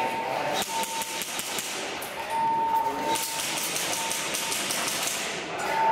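Airsoft guns firing in rapid bursts, a fast clatter of shots. A steady high beep comes and goes several times.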